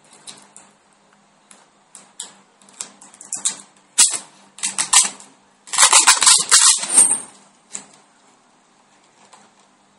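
Hands handling a plastic smartphone and its protective film: a run of small plastic clicks and crackles, growing denser and loudest from about six to seven seconds in, then a single click near the end.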